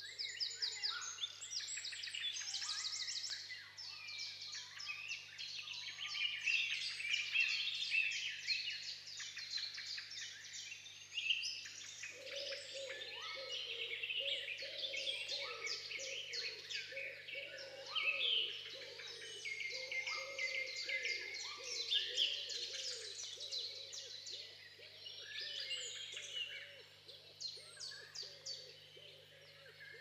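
Dense chorus of songbirds singing and chirping, many short trills and whistles overlapping. About twelve seconds in, a lower warbling song joins and carries on underneath.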